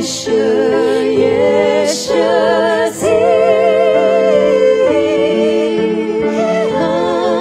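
Live music: a singer holding long notes with vibrato.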